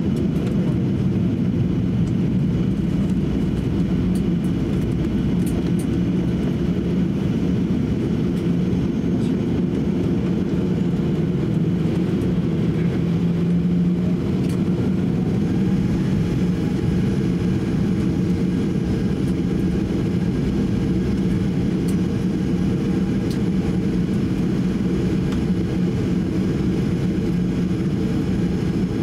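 Steady low rumble inside the cabin of a Boeing 737-800 taxiing, its CFM56 engines at idle, with a constant low hum underneath.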